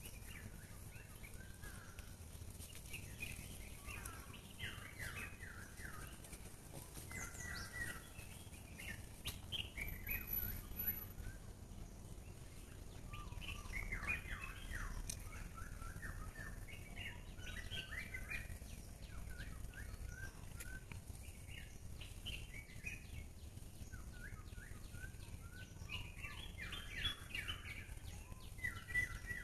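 Wild songbirds calling, in repeated clusters of short, quick chirps every few seconds, over a faint steady low background noise.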